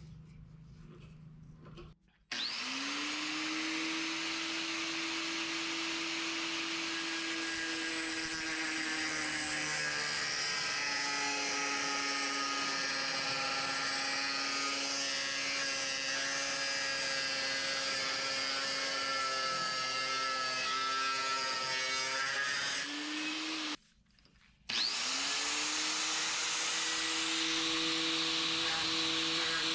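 Electric angle grinder spinning up about two seconds in and running steadily with a high whine while its disc grinds steel, throwing sparks; the pitch sags a little while the disc bears on the metal and rises again when it comes off. The sound cuts off abruptly near three quarters of the way through, then a grinder spins up again and runs on.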